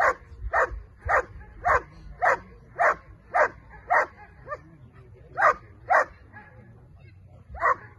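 Giant schnauzer barking at the protection helper, the bark-and-hold of Schutzdienst protection work. About a dozen sharp barks come at a steady rhythm of roughly two a second, with a short break after about four seconds and a longer one near the end.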